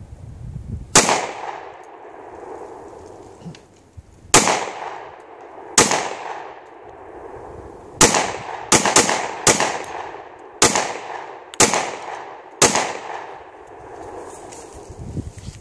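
Ten shots from a new Glock 29 10mm pistol being broken in with ordinary loads rather than full-power ones. The shots come singly with pauses of a second or more, except for a quick run of four in about a second and a half around the middle, and each shot rings off with a short echo.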